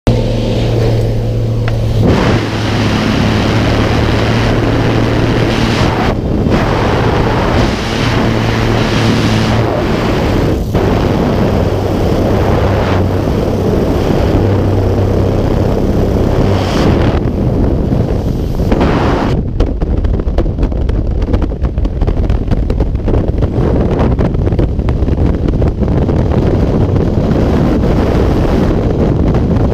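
Single-engine light aircraft's piston engine and propeller running steadily, with loud wind rushing past the open door. Near the two-thirds mark the engine hum gives way to heavy freefall wind buffeting the microphone.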